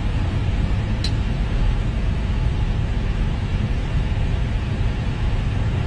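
Steady low noise inside an Airbus A320 flight deck on the ground after landing, with a short click about a second in.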